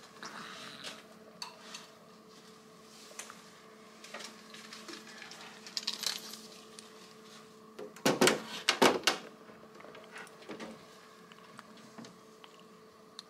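Steady faint hum of hospital equipment at a newborn's infant warmer, with scattered small clicks. About eight seconds in comes a brief burst of clattering, several knocks close together.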